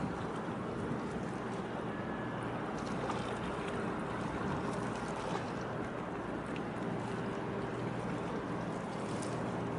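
Steady low drone of ship engines over an even haze of wind and water noise.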